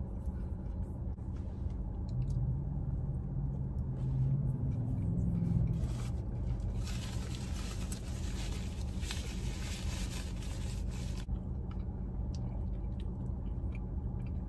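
Steady low hum inside a parked car, with a paper napkin rustling for a few seconds past the middle as hands are wiped.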